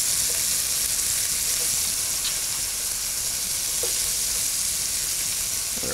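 Pieces of chicken and green pepper sizzling steadily in a nonstick frying pan, turned down so the grated cheese scattered over them doesn't burn.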